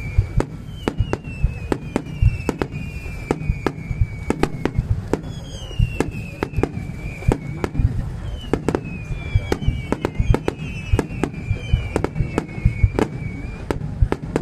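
Fireworks display: a rapid, irregular string of loud bangs from bursting shells, with several whistles gliding down in pitch over them and a steady low rumble underneath.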